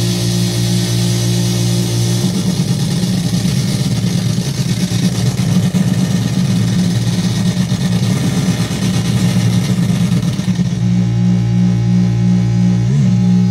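Low electronic drone from two chained Sound of Shadows v3 delay modules. It starts steady, turns rough and gritty about two seconds in, then settles back to a steady drone near the end, with a brief pitch wobble just before the end.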